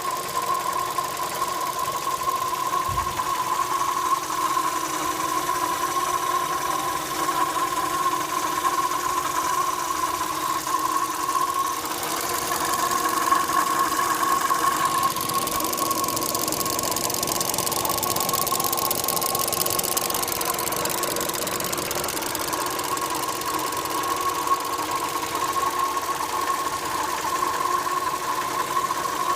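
Opel Astra J's 1.4 A14XER four-cylinder petrol engine running with a steady high-pitched whine over the engine noise, shifting somewhat about twelve seconds in. The owner describes it as a strange new noise that follows engine speed, comes from the left side of the engine and goes deeper when the A/C compressor engages. They suspect a belt rubbing on a hollow part, or possibly flow noise in the fuel filter.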